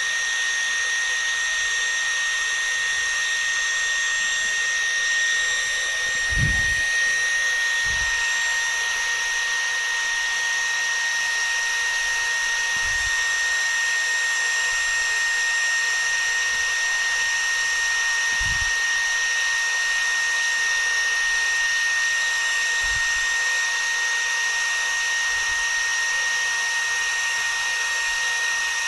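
Xiaomi Shunzao Z1 cordless stick vacuum running steadily on low speed, a high motor whine with one strong even tone over a constant hiss. A few soft low thumps come now and then, the first about six seconds in.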